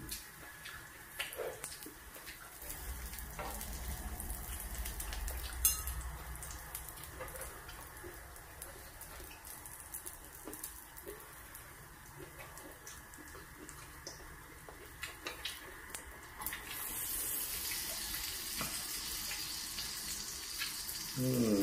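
Food sizzling on a tabletop electric griddle: a steady frying hiss with scattered light clicks of chopsticks and dishes. The hiss grows louder about three-quarters of the way through.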